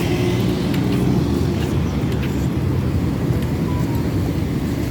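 Steady low rumble of road traffic, a vehicle engine running close by.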